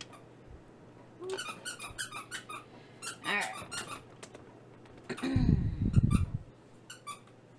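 Short, repeated squeaks from a metal spoon spreading thick barbecue sauce over a baked crescent-dough crust on a foil-lined baking sheet. About five seconds in there is a loud, low rumble lasting about a second.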